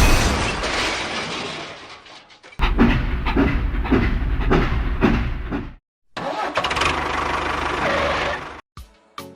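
An engine cranking and running: a burst of regular pulses about two a second, a brief stop, then steady running for a couple of seconds before cutting off. A few short pitched plucks sound near the end.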